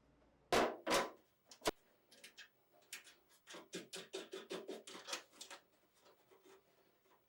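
Parts being handled during reassembly of a metal pedal car: two heavy knocks, a sharp click, then a quick run of short scraping or ratcheting strokes, about five a second, that stops after a couple of seconds.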